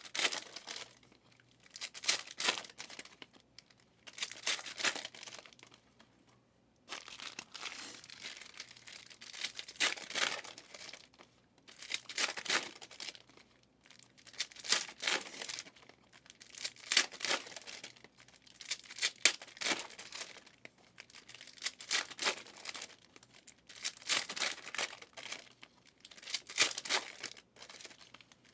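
Foil trading card pack wrappers being torn open and crinkled, in repeated bursts about every two seconds.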